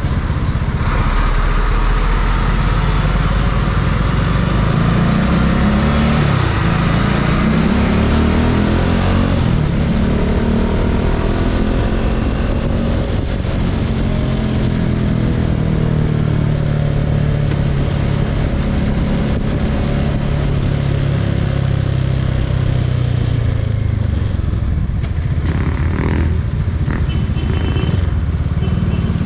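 Bajaj Dominar 400's single-cylinder engine under way: revs climb and drop several times as it accelerates through the gears, then settle into a steady cruise, with road and wind noise throughout.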